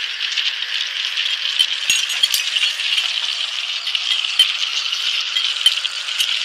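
Steady, dense rattling with scattered sharper clicks.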